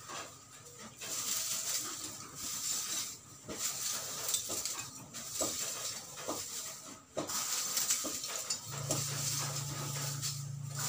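Lumps of wood charcoal clicking and clattering against each other and rustling in a plastic bag as they are scooped up by hand for repacking, over a steady hiss. A low steady hum comes in near the end.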